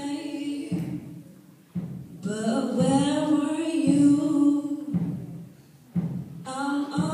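Young women singing into microphones, amplified in a large hall. The phrases have long held notes, with short pauses about a second in and after about five seconds.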